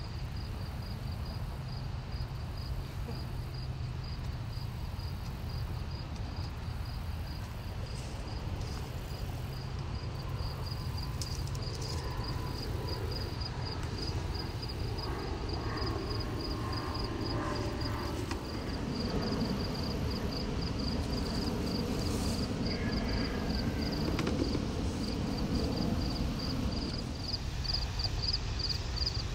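Crickets chirping in a steady, even rhythm over a low steady rumble, with rustling from the tomato vines being handled partway through.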